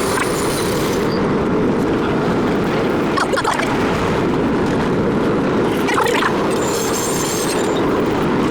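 Century-old IRT Low-V subway car running at speed through a tunnel: a loud, steady rumble of wheels and running gear, with two brief sharper sounds about three and six seconds in and a faint high squeal near the end.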